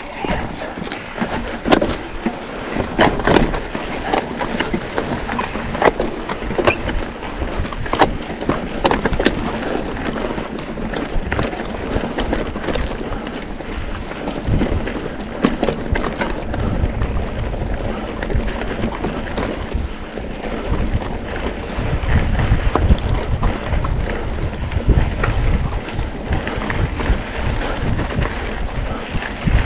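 Mountain bike ridden over a loose, rocky trail: tyres crunching on stones, with frequent knocks and rattles from the bike over the rocks. Wind on the microphone gets louder in the second half as the track becomes smoother gravel.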